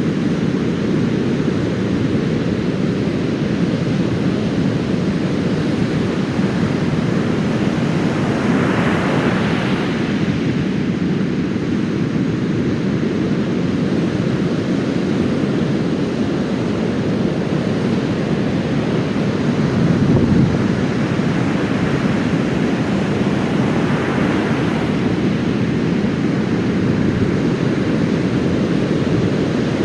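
Heavy surf from a sea stirred up by a passing typhoon, breaking on a sandy beach: a steady, loud low rumble of waves, with the hiss of breaking water swelling about a third of the way in and again near the end.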